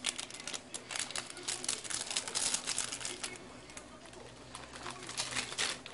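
A foil seasoning sachet crinkling as powder is shaken out over noodles in a pan. Quick clicky rustling over the first three seconds or so, then again briefly near the end, over a faint low hum.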